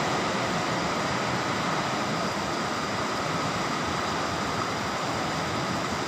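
Heavy storm rain pouring down in a steady, even rush.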